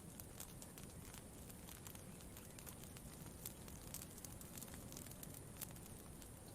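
Campfire crackling faintly: irregular small pops and snaps over a soft low rumble, with a couple of sharper pops past the middle.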